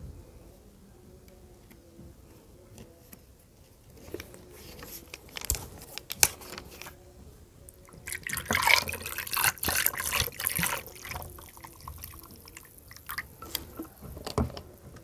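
Plastic drink bottle's screw cap twisted open with scattered clicks and one sharp crack, then tea poured from the bottle into a glass over balls of ice, the pour rising in pitch as the glass fills, followed by light clicks and a knock near the end.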